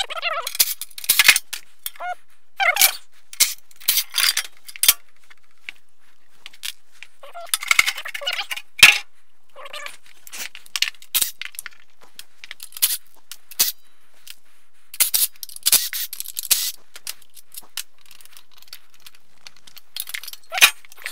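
Scattered clanks, clicks and knocks of metal and plastic parts as a power wheelchair's seat is unbolted and pulled off its base, with several short bursts of a cordless drill run in brief spurts.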